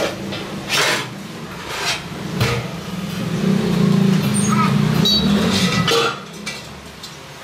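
Several sharp metallic clanks and knocks as a steel truck rim is handled at a lathe, over a steady low machine hum that drops away about six seconds in.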